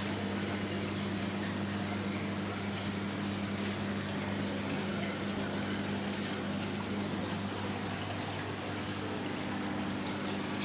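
Aquarium pumps and aeration running: a steady low electrical hum under a constant hiss of moving water and bubbles.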